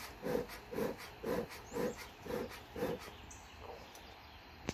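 Hand-pumped bellows of a bee smoker puffing air into the smouldering firebox to fan the fire, about two short whooshing puffs a second, six in all, stopping about three seconds in.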